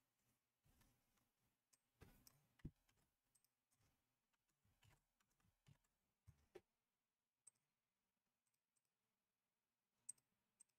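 Near silence with faint, scattered clicks and taps, thinning out after about six seconds.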